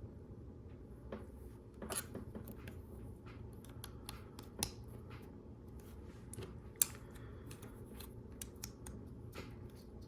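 Small plastic clicks and taps of LEGO Technic pieces being handled and pressed together, with a few sharper snaps about two, four and a half and seven seconds in.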